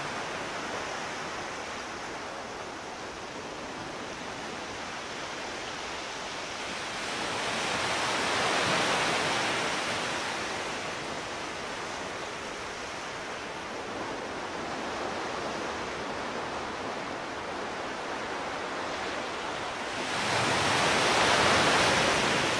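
Steady rushing wind noise of air streaming past the onboard camera of a Space Shuttle solid rocket booster as it descends under its parachutes. It swells louder about eight seconds in and again near the end.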